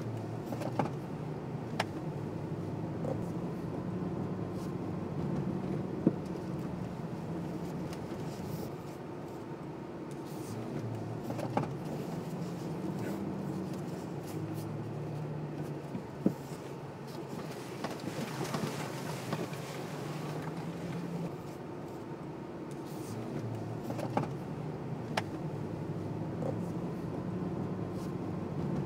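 Nissan Patrol's 5.6-litre V8 petrol engine running at low speed, heard from inside the cabin, its note rising and falling with the throttle as the SUV drives over a dirt track. Sharp knocks come every few seconds, and a louder hissing rush comes about two-thirds of the way through.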